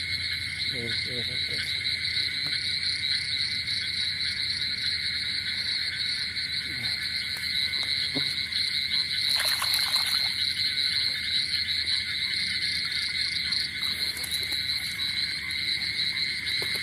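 Steady night chorus of frogs and insects: a continuous high trill. Brief splashing of hands in the shallow water about ten seconds in.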